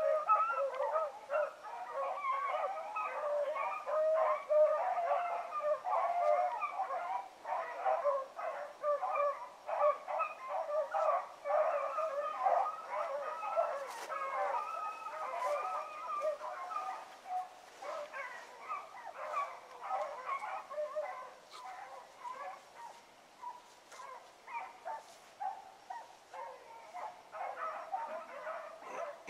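A pack of rabbit hounds in full cry, several dogs baying and barking over one another as they run a rabbit's trail. The chorus is thick and continuous at first, then thins and fades somewhat over the last third.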